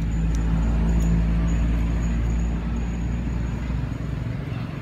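A passing motor vehicle: a low engine rumble that swells about a second in and fades away after about three seconds.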